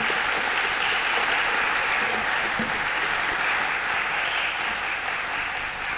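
Audience applauding steadily, beginning to die away near the end.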